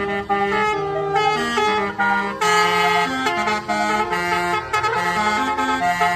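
Telolet 'basuri' multi-trumpet bus air horn playing a melody, a run of held notes stepping up and down in pitch.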